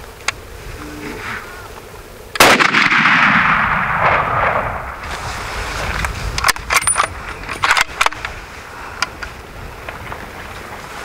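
A single hunting rifle shot about two and a half seconds in, its report rolling away in a long echo over the next two seconds or so. A quick run of sharp clicks follows a few seconds later.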